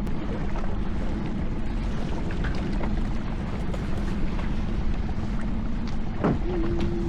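Steady wind and sea noise around a small open fishing boat, with a low steady hum underneath. A brief swooping tone comes near the end.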